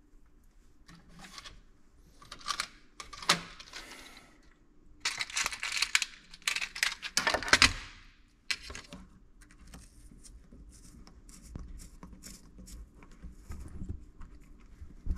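Handling noises at a workbench: small clicks, taps and rustles as hands fit parts onto a bowfishing arrow shaft, with a denser run of rattling and rustling from about five to eight seconds in.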